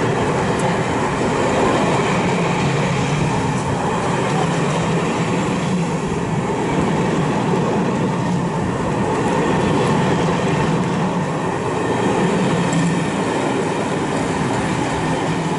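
A rake of passenger coaches passing along a station platform, the steady rumble of wheels running on the rails.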